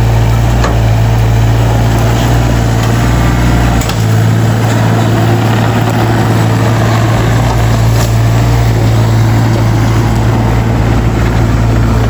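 Excavator's diesel engine running steadily with a constant low drone, and a few sharp knocks over it.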